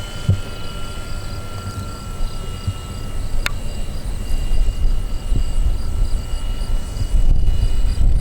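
Electric pusher motor of a Hobby King Sky Eye R/C plane whining steadily in flight, its pitch drifting slightly, over a low rumble of wind on the microphone that grows louder in the second half. A single sharp click about three and a half seconds in.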